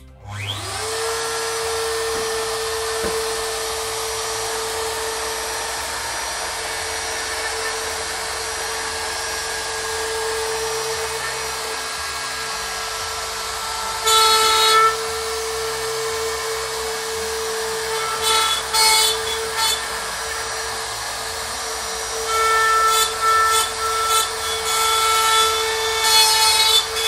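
A CNC router's spindle motor is switched on and spins up within about a second to a steady whine. The bit then cuts into a wooden block, with louder spells of cutting about halfway through and repeatedly near the end.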